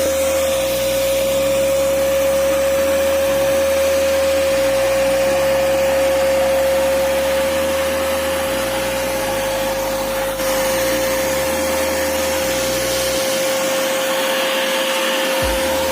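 Agaro Ace 1600 W wet and dry vacuum cleaner running steadily, with an even motor whine over the rush of air.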